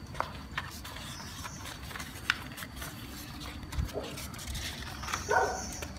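A sheet of printer paper rustling and crinkling as it is folded by hand into a paper boat, with scattered light clicks. A short voice-like call sounds near the end.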